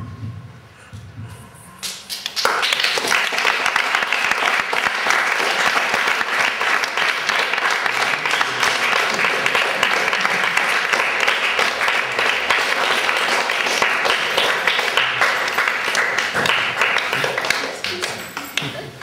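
Audience applauding. The clapping starts suddenly about two and a half seconds in, holds steady, and dies down near the end.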